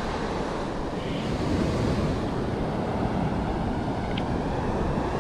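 Small surf waves washing up a sandy beach, a steady rushing wash, with wind buffeting the microphone.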